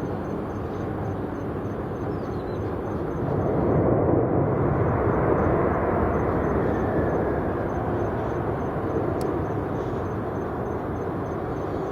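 Jet airliner passing by: a broad engine rumble swells to its loudest about four to six seconds in and then slowly eases, with a faint whine falling in pitch as it goes.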